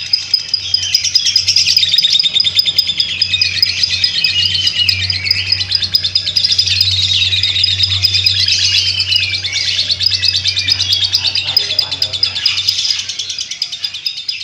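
Lovebird singing its long, unbroken 'ngekek' chatter: a rapid, continuous high-pitched trilling and twittering without pauses.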